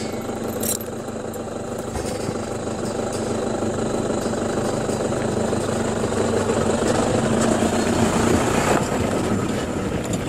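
A vehicle engine idling steadily, growing a little louder in the second half.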